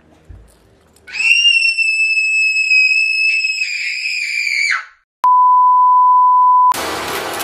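A long, high-pitched scream held at one pitch for about three and a half seconds, then a steady 1 kHz test-card tone lasting about a second and a half, cut off by a burst of noisy sound near the end.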